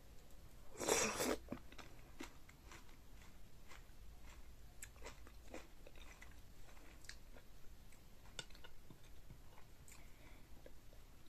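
Close-miked chewing of seafood-boil food: soft wet mouth clicks scattered throughout, with one short, loud crunch about a second in.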